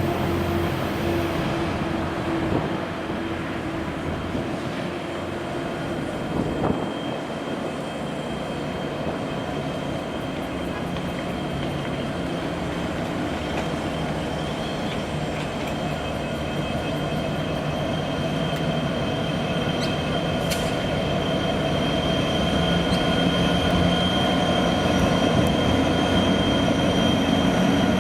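Freight train wagons rolling past on steel rails: a steady rolling rumble with high-pitched wheel squeal, growing louder over the last several seconds.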